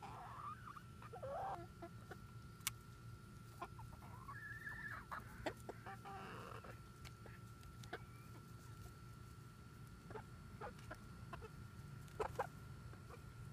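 Hens clucking softly now and then, with sharp little clicks of beaks pecking at grapes and ice in a foil pan.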